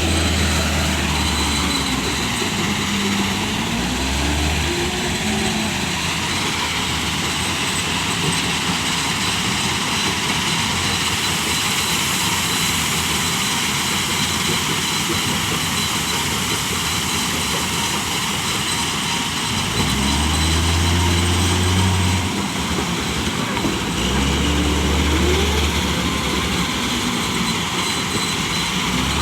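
Heavily loaded truck's engine running and pulling in low gear, its pitch rising and falling as it revs and shifts. It drones louder twice in the second half.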